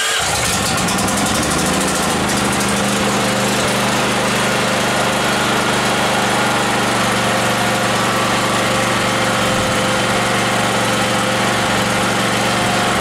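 Portable generator's small combustion engine running steadily at constant speed just after an electric start; its note settles during the first couple of seconds, then holds even.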